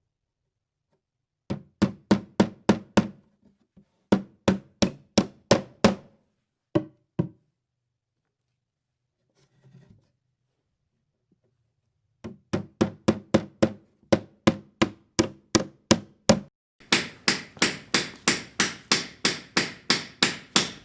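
Hammer blows in runs of rapid, evenly spaced strikes: two short runs of about six blows, two single blows, a pause, then a long steady run of about three blows a second. Near the end the strikes come faster, about four a second, with a brighter ringing tone that suggests a different, harder surface.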